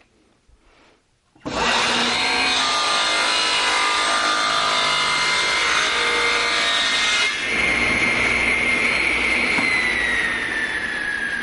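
A Ridgid table saw comes up to speed suddenly and rips through a wooden board. At about seven seconds in the cut ends and the blade runs free with a steady high whine. Near the end the saw is switched off and the whine falls steadily in pitch as the blade spins down.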